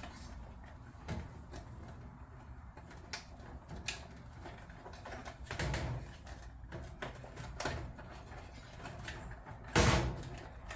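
Scattered light clicks and knocks of hands and tools working on a Biasi Riva Plus boiler while a replacement circuit board is fitted, with one louder knock near the end.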